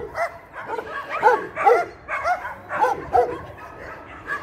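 Several dogs barking and yelping in a quick, overlapping run of short calls, each rising and falling in pitch.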